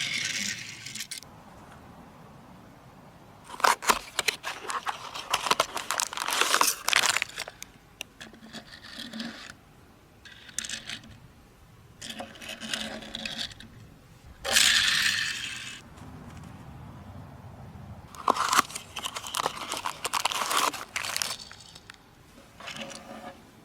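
Packaging being handled and opened by hand, in irregular bursts of crinkling, tearing and scraping with sharp little clicks between quieter pauses.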